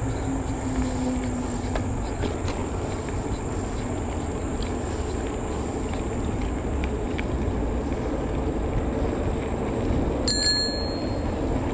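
Steady wind and tyre noise from an e-bike rolling along a paved path, under a thin, high, steady insect drone. About ten seconds in, the handlebar bell rings once, a short bright ding that warns walkers ahead.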